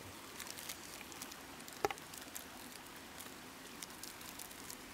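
Open wood fire crackling faintly, with scattered small pops and one sharper pop about two seconds in.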